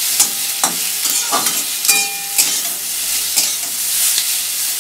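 Boiled potato pieces sizzling in hot oil in a metal kadai over a medium-high flame, stirred and tossed with a flat metal spatula that scrapes and clinks against the pan about twice a second, with a short metallic ring about two seconds in.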